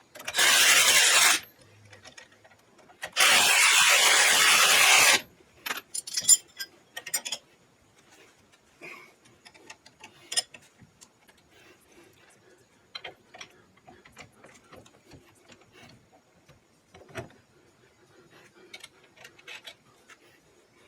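Shop work sounds: two loud bursts of even rushing hiss, about one and two seconds long, then scattered light clicks and knocks of tools and parts.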